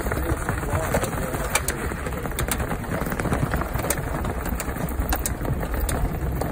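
Car rolling slowly on snow with tire chains fitted: a steady low rumble of tyres on packed snow, with irregular sharp clinks of the chain links slapping the tread and road.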